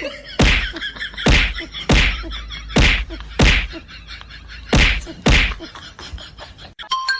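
A series of seven loud whacks, roughly one every second, with a short pause before the last two.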